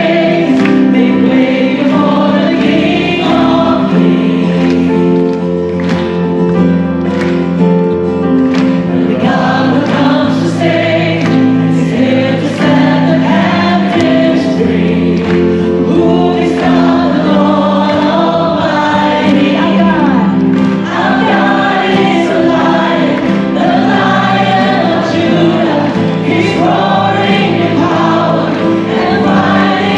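Christian worship music: a choir singing over held instrumental chords.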